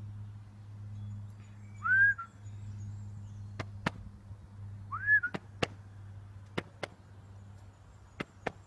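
Two short whistle-like tones about three seconds apart, each rising quickly and then holding. Between and after them come pairs of sharp clicks, over a steady low hum.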